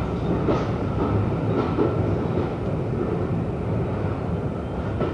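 Passenger train rolling slowly along a station platform, heard from a carriage window: a steady rumble with a faint steady whine and a few light knocks about a second apart.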